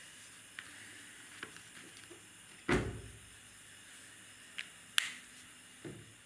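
Quiet room hiss with a few handling noises: light ticks, a dull thump near the middle and a sharp click about two seconds later.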